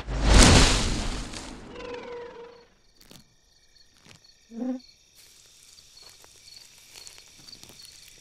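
A loud cartoon blast sound effect that dies away over about a second and a half. A quiet night ambience of crickets chirping follows, with a short pitched chirp about halfway through.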